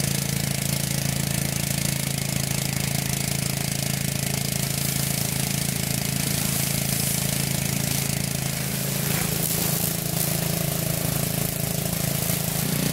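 Honda GC160 single-cylinder engine running a pressure washer pump steadily on a test run, with a hiss over it. About two-thirds of the way in the engine note changes as the load shifts.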